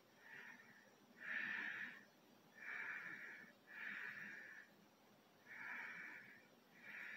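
A man's breathy wheezes, about six of them roughly a second apart, each a short hiss of air.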